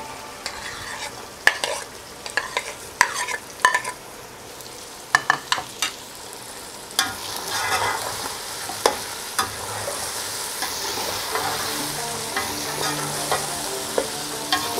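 Chicken frying in hot oil in a cooking pot, with a spoon stirring and scraping, knocking sharply against the pot several times. The sizzle grows louder about seven seconds in.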